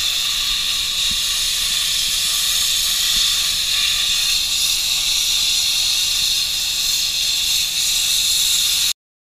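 Abrasive blasting nozzle spraying recycled crushed-glass media: a loud, steady hiss of air and grit, stopping abruptly near the end.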